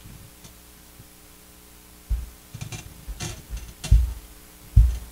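Low steady electrical hum, then from about two seconds in a run of dull thumps and small clicks: handling noise picked up by a desk microphone.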